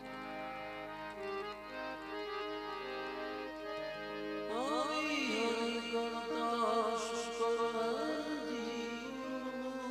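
Harmonium playing held notes of a devotional bhajan melody. About halfway in, a man's voice joins it, singing long notes that waver and slide between pitches.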